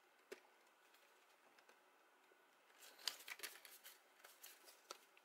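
Faint rustling and light taps of cardstock pieces being handled and pressed together, with a small cluster of them about three seconds in; otherwise near silence.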